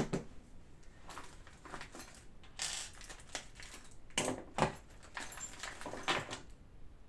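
Small metal hex keys clinking and rattling against each other as they are sorted through by hand to find the right size, in a series of irregular clinks with a few louder knocks.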